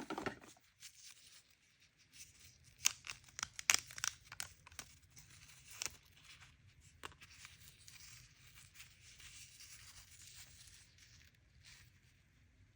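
Toy packaging being torn open and crinkled by hand: sharp crackles for the first few seconds, then a steadier rustling tear that fades near the end.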